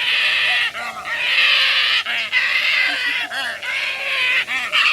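A crowd of birds in an aviary squawking and calling at once: harsh, overlapping calls with short chirps, loud and nearly unbroken.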